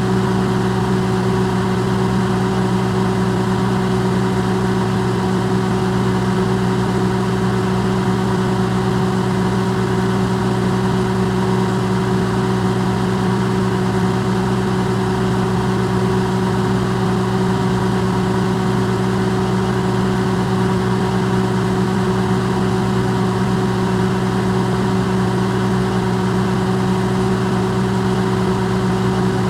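Electrolux microwave oven running, recorded close and amplified: a steady, unchanging hum with a low drone and a few fixed higher tones over a soft hiss.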